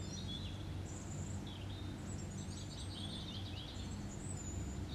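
Small birds chirping in short high trills several times, over a steady low hum.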